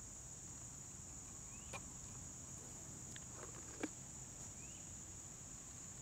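Steady high-pitched insect chorus, like crickets, drones on without a break. Two faint clicks come about two seconds apart, and two short rising chirps are heard.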